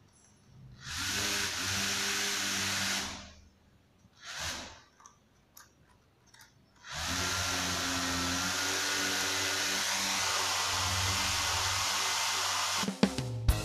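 Small DC toy motor in a cardboard model helicopter whirring as it spins the cardboard rotor, switched on for about two seconds, blipped briefly, then run steadily for about six seconds.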